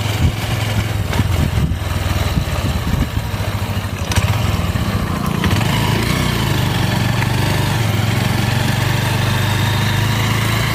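Honda Dream motorcycle's single-cylinder four-stroke engine running on LPG with its body panels stripped off. It is uneven at first, then settles into a steady drone about four seconds in.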